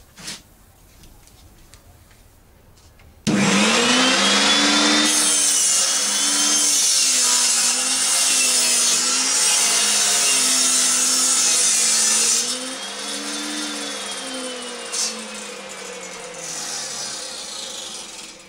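Table saw starting up suddenly about three seconds in and ripping along a rough, waney-edged board carried on a crosscut sled, its motor pitch wavering through the cut. It goes quieter after the cut, and its pitch falls away near the end.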